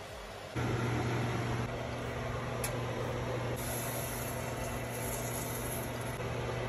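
Oven fan running with a steady low hum while the oven stands open and hot for baking.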